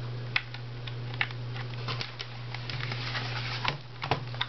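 Scattered light clicks and taps as a USB mouse plug is pushed into a netbook's rear USB port and the netbook is handled, over a steady low hum.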